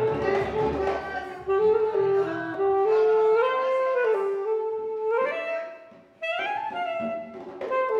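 Music with a melody of long held notes moving up and down in steps over a band accompaniment. It drops out briefly about six seconds in, then comes back.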